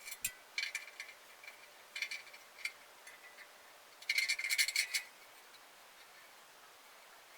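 Small hard objects clicking and clinking in a few short bursts, with a denser rattling burst lasting about a second, about four seconds in.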